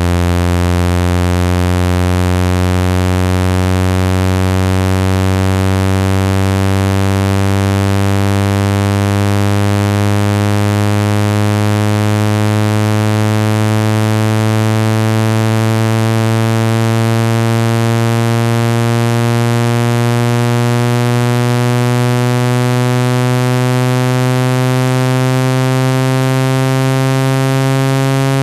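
Synthesized low buzzing tone, rich in overtones, gliding slowly and steadily upward in pitch. It is a speaker water-ejection sound, played loud to vibrate trapped water out of a phone speaker.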